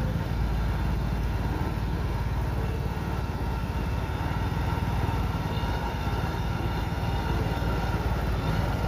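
Kubota DC-93 combine harvester's diesel engine running steadily as the machine travels on its rubber tracks: an even low rumble with a faint steady whine above it.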